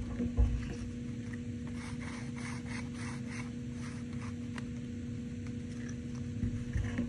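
Two cardboard pieces joined by a brass paper fastener being handled and swivelled around it, a low thump near the start, then a quick run of dry, scratchy clicks of cardboard rubbing on cardboard for about a second and a half. A steady electrical hum runs underneath.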